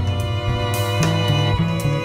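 Live chamber-jazz ensemble playing: violins, viola and cello holding sustained notes over a moving double bass line, with drums keeping time on cymbals.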